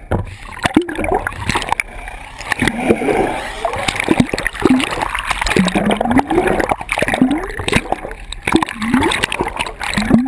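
Water splashing and gurgling around a camera held underwater, with a string of short bubbling glides that rise and fall in pitch about once a second.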